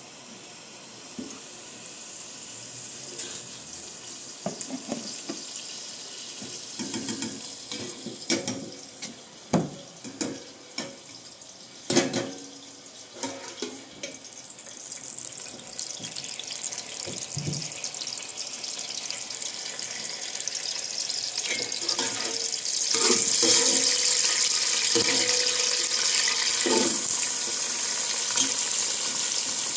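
A metal ladle clinking and scraping against a tin of cooking oil and an aluminium pot, a dozen or so sharp knocks in the first half. After that a steady hiss builds up and stays loud to the end.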